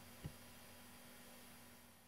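Near silence: room tone with a faint steady hum, and one soft low thump shortly after the start.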